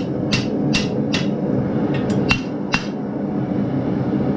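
Blacksmith's hand hammer striking a glowing half-inch steel bar over the anvil horn, rounding a bend: ringing strikes in two runs of about three, a little under half a second apart, with a short pause between. A steady low hum runs beneath.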